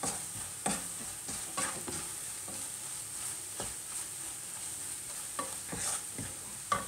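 Wooden spatula stirring and scraping sliced onions and ground spices frying in oil in a non-stick pan, over a steady sizzle, with a few short scrapes and knocks against the pan. The spice powders are being fried until their raw smell goes.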